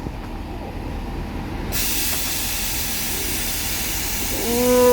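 Class 165 diesel multiple unit releasing air with a sudden, steady hiss about two seconds in, then sounding its horn on one held tone near the end.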